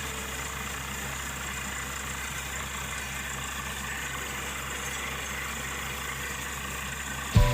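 Borewell drilling rig's engine running steadily at a constant speed.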